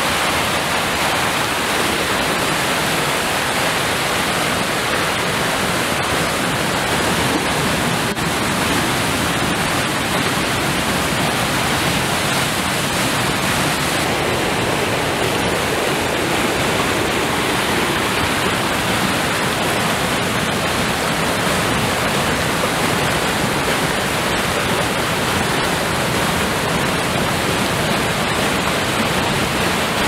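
Steady rushing of a mountain river's whitewater rapids and waterfall.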